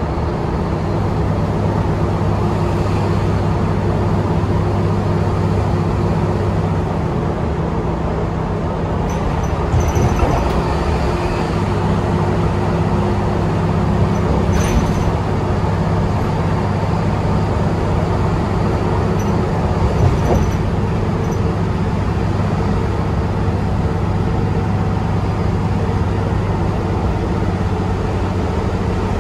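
Cabin noise inside a 2020 New Flyer Xcelsior XDE60 articulated diesel-electric hybrid bus under way at highway speed: a steady drivetrain hum over road noise. A few brief knocks or rattles come about 10, 15 and 20 seconds in.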